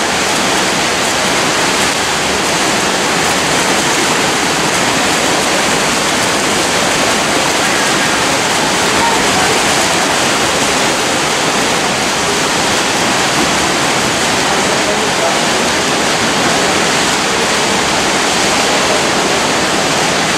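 Steady splashing of several swimmers racing front crawl, blended with a constant din of voices in an indoor pool hall.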